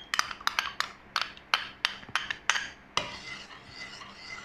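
A metal spoon clinking sharply against a container and pan, about four clinks a second for three seconds, then a soft steady hiss as the soaked sago mixture goes into the hot water.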